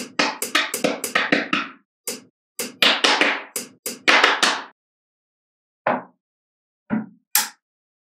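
Small neodymium magnetic balls clicking and snapping together as slabs of them are pressed onto a magnetic-ball build. There is a quick run of clattering clicks for about five seconds, then three separate snaps near the end.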